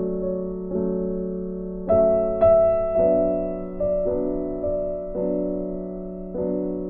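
Background music: soft piano or electric-piano chords, struck about once a second and left to ring and fade.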